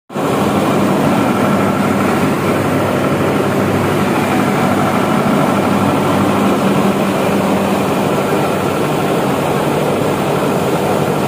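Water gushing from an overhead filler pipe into the water tank of a Nilgiri Mountain Railway rack steam locomotive: a loud, steady rush with a faint steady hum underneath.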